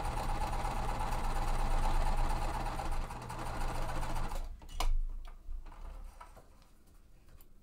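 Sewing machine stitching a quilt-piece seam at a steady, fast pace, restarted after the fabric jammed into the machine; it stops about four seconds in, followed by a few light clicks.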